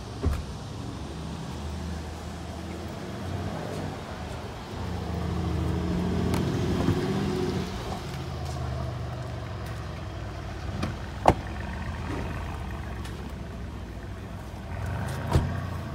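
A car engine running, louder for a few seconds around the middle, with three sharp knocks: one near the start, a louder one about two thirds through, and one near the end.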